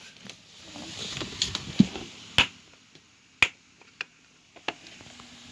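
Handling noise from a phone being held and covered. Soft rustling for about two seconds, then a few sharp clicks or taps roughly a second apart.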